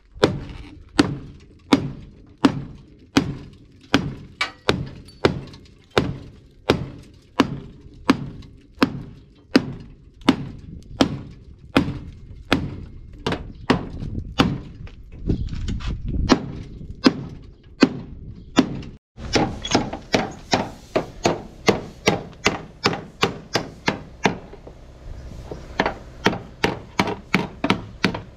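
Hand hammer striking the steel door pillar of an old Mercedes truck cab in a steady run of sharp metallic blows, about two a second and a little faster near the end. The pillar is being panel-beaten straight after accident damage while a chain puller holds it under tension.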